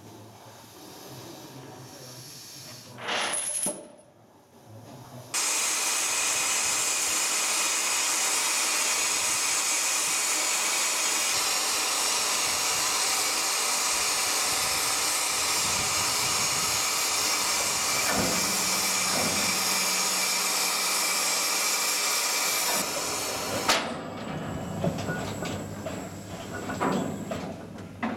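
Steam crane letting off steam: a loud, steady hiss that starts suddenly about five seconds in, runs for roughly seventeen seconds and cuts off sharply. A brief hiss comes before it, and scattered knocks follow it near the end.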